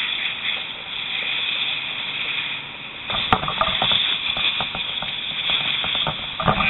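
Steady hiss of steam and water spray on a fire, with scattered crackles and clicks starting about three seconds in.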